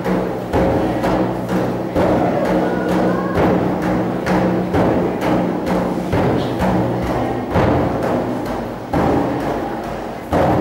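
Several large frame drums played by hand together in a steady beat of about two strokes a second, each stroke leaving a deep ringing tone. A loud stroke comes near the end.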